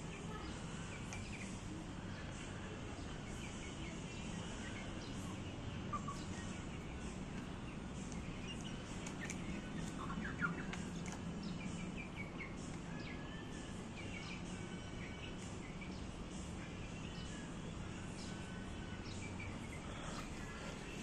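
Chickens feeding from a plastic bowl: scattered soft chirps and clucks and small taps of beaks, over a steady low background hum, with one sharper tap about ten seconds in.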